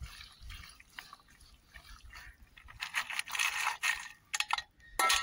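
A hand mixing raw peanuts through wet gram-flour batter in a steel bowl makes soft wet rustling. About three seconds in, louder pattering follows as more raw peanuts are poured in from a steel bowl, and a couple of sharp metal clinks come near the end.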